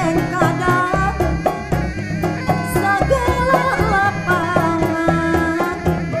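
Traditional Sundanese music: large terbang frame drums beating a quick, steady rhythm, about four strokes a second, under a wavering melodic line with sliding notes, sung by the female vocalist.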